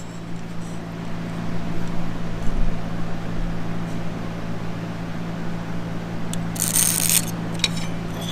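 Steady electrical hum from shop equipment, with a short hiss about seven seconds in.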